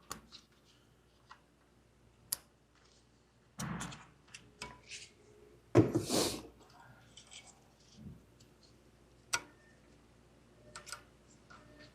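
Hands working a car's wiring harness and its plastic connectors: scattered sharp clicks and light taps, with two brief louder rustling bursts about four and six seconds in.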